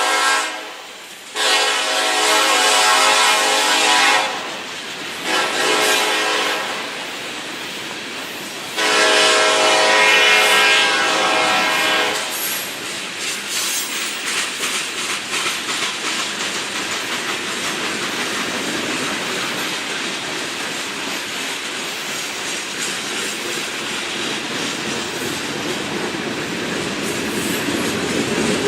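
Freight locomotive horn sounding a long, long, short, long pattern, the grade-crossing signal, with the last blast ending about twelve seconds in. The train then rolls past with a steady rumble and wheels clicking over the rail joints.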